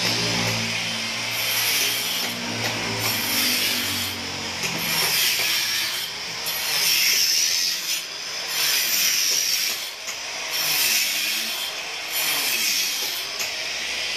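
Electric angle grinder cutting into a concrete floor: a continuous gritty grinding over the motor, whose pitch dips and recovers again and again as the disc is pushed into the cut.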